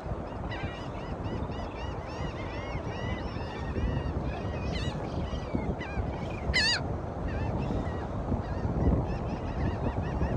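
A flock of birds calling in many short, overlapping chirps, with one louder call about six and a half seconds in, over a steady low rushing noise.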